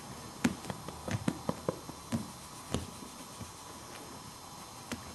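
A quick, irregular run of soft taps and thumps, about ten in two and a half seconds with one more near the end: a tabby cat's paws scuffling against a hand and the carpet during rough play.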